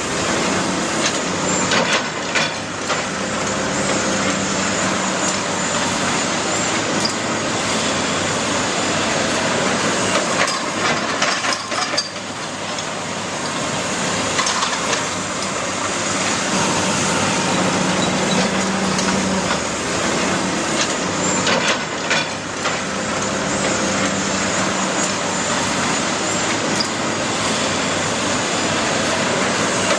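Building demolition: a heavy machine's diesel engine runs under continual crunching and cracking of breaking timber and debris, with sharper cracks now and then.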